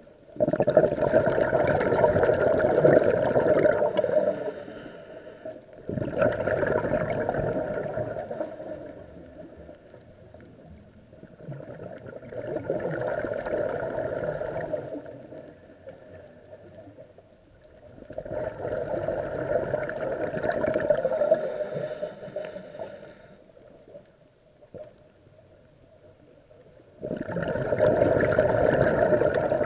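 Scuba diver breathing underwater through a regulator: five long bursts of exhaled bubbles, about one every six seconds, with quieter gaps between them.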